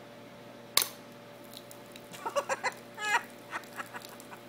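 A single sharp crack of an airsoft BB gun shot at a water balloon, about a second in. It is followed by a run of short, high-pitched calls.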